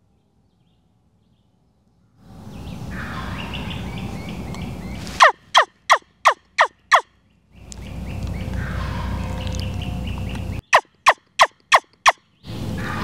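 Wild turkey calling: twice, a run of six sharp yelps, each note falling in pitch, about three a second. Each run comes after a few seconds of rough, rattling noise.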